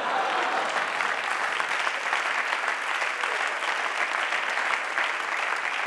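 Audience applauding a punchline, a dense steady clapping that eases slightly near the end.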